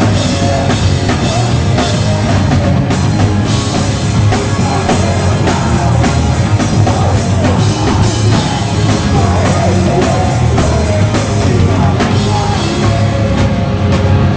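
Loud pop-punk band music, with a driving drum kit and guitars playing without a break; faint singing may be mixed in.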